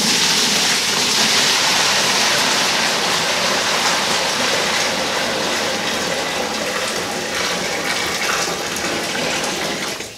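Hot water gushing steadily as a stainless steel brew kettle is tipped and emptied into a mash tun. This is the strike water being added for the mash. The pour starts at once and stops just before the end.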